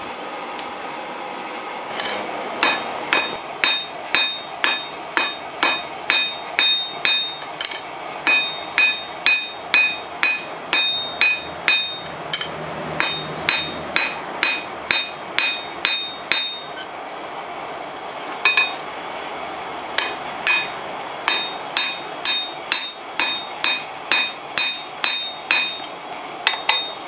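Blacksmith's hand hammer forging a hot metal bar on an anvil, about two blows a second, each leaving a bright anvil ring. The blows come in runs separated by short pauses, starting a couple of seconds in.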